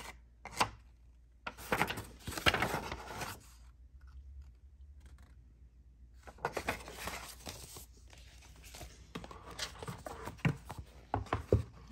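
Paper rustling and crinkling as a folded paper lyric sheet is unfolded and handled, in several spells with short pauses between. A few light knocks near the end.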